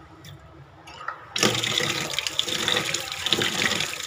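Kitchen tap turned on about a second and a half in, water running steadily into a bowl of foxtail millet in a stainless steel sink to rinse the grain.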